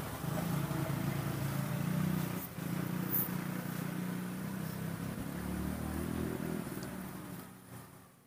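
Steady engine hum of a motor vehicle, fading away near the end.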